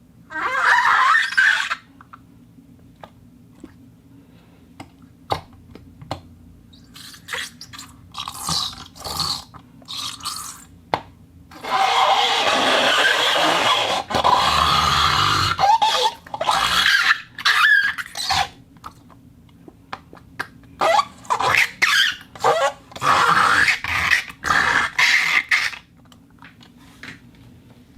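Foley props being rubbed and scraped by hand, giving a string of squeaky, scraping rubs, each from a fraction of a second to a few seconds long, with small clicks between them. The longest and loudest rub comes about twelve seconds in, and a quick run of short rubs follows near the end.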